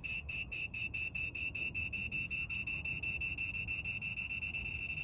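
High-pitched electronic warning beep from a 2500 W 12–220 V inverter, pulsing rapidly at about nine beeps a second and settling into a steady tone near the end. It sounds as the 900 W kettle load drags the output voltage down from about 159 to 145 V: the inverter is struggling under the load.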